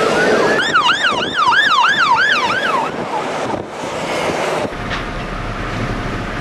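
Ambulance siren sounding as an emergency convoy passes: a slow wail glides up into a fast yelp, about two and a half sweeps a second, which stops about 3 s in. A vehicle then rushes past. About 4.7 s in, the sound cuts to a steady low rushing noise.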